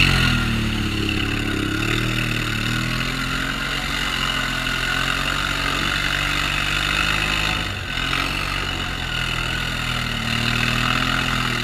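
Quad bike (ATV) engine running, its pitch rising and falling with the throttle, with a brief drop about eight seconds in.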